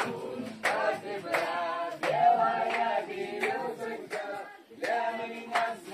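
A group of people singing together without instruments, with several sharp smacks between and over the phrases.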